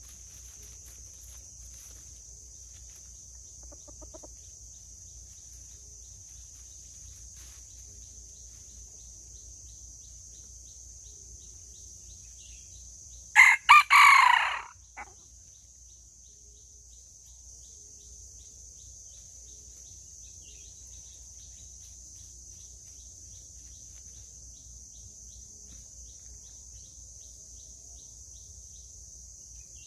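Red junglefowl rooster crowing once about halfway through, a short crow of under two seconds that breaks off abruptly, over a steady high insect drone.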